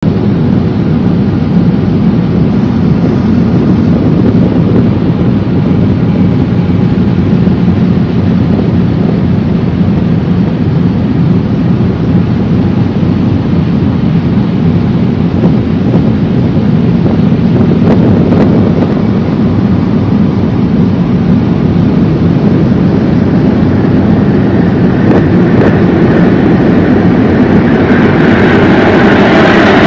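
Steady wind buffeting the microphone and water rushing past a ship under way. Over the last few seconds a higher, louder jet roar builds as the aircraft formation approaches.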